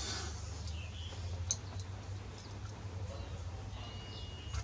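A few light clicks, then a multimeter's continuity buzzer sounding one high, steady beep for just under a second near the end: the circuit is connected.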